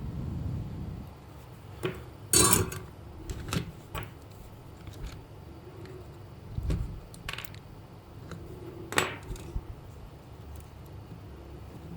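Scattered clicks, taps and clatters of small hard objects being handled, with two louder knocks: one about two and a half seconds in and one around nine seconds.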